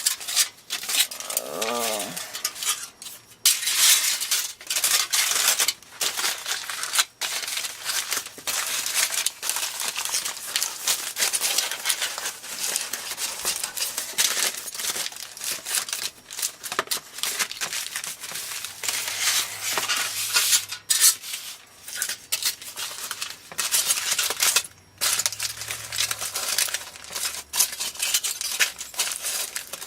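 Aluminium foil crinkling and rustling as it is handled, folded and pressed down, with many small sharp crackles throughout.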